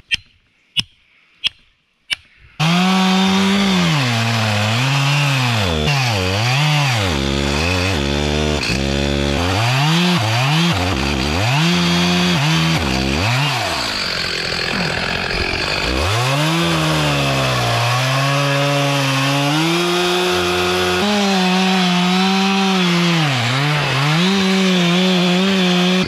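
A hatchet knocks a few times on a plastic felling wedge in the back cut of a tree. About two and a half seconds in, a Stihl MS 462 two-stroke chainsaw starts cutting into the trunk, its engine speed dipping under load and recovering again and again.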